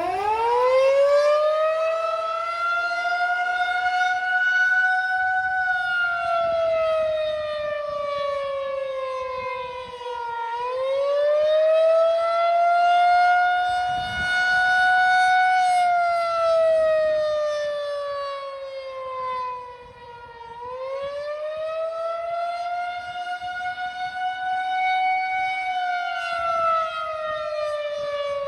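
Federal Signal 2001-130 electromechanical tornado siren sounding for a scheduled test. It winds up fast from a low growl at the very start, then wails: its pitch sinks slowly and climbs back about every ten seconds, with falls beginning about six, sixteen and twenty-six seconds in.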